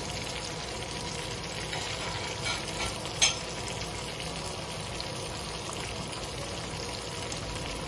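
Spice-coated Lahori fish pieces sizzling steadily as they shallow-fry in hot oil in a non-stick pan, while a slotted spatula turns and lifts them, giving one sharp knock about three seconds in.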